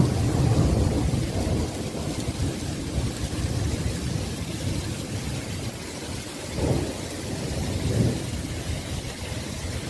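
Hailstorm: hail and rain falling steadily on a street and parked cars, a continuous hiss over a low rumble, with two brief swells of rumble past the middle.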